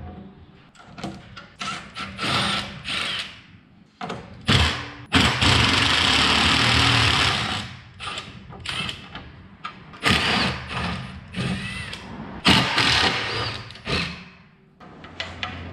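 Milwaukee Fuel cordless driver spinning out the rusty bolts of a steel plate in several short bursts; the longest run lasts about two seconds.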